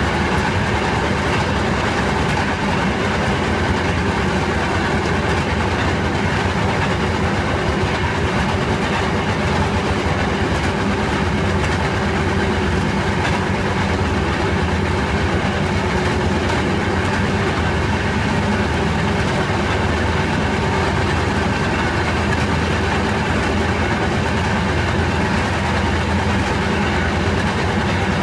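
M19 railroad speeder running steadily along the track, heard from inside its cab: a constant engine drone with the wheels rolling on the rails.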